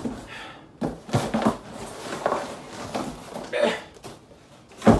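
Cardboard packing material and a small cardboard box being handled and pulled out of a large shipping carton: irregular rustling and scraping with short knocks, the loudest a sharp thump just before the end.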